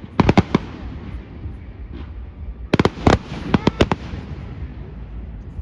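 Fireworks going off: two quick clusters of sharp bangs, about four just after the start and about six more from the middle, each volley trailing off in an echo over a low rumble from the crowd and surroundings.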